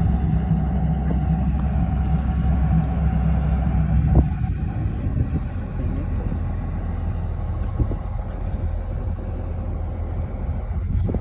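Excavator's diesel engine running steadily with a low rumble; the low drone eases off about four seconds in, just after a short click.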